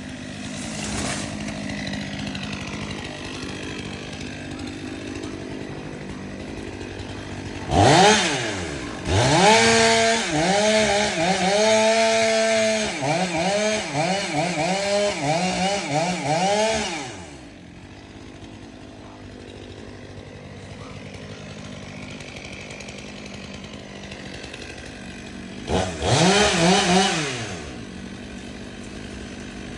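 Chainsaw idling, then revved up about a quarter of the way in and held under load for several seconds, its pitch repeatedly dipping and recovering as it bites into canary palm wood, before dropping back to idle; a short rev near the end.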